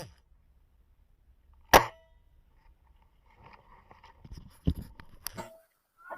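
Airsoft gun firing a single sharp shot about two seconds in, followed by quieter rustling and two sharper clicks near the end.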